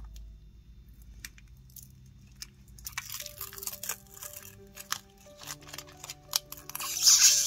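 Thin plastic protective film being peeled off a metal nail-stamping plate, crinkling and crackling in irregular bursts from about three seconds in, loudest near the end. Soft background music plays underneath.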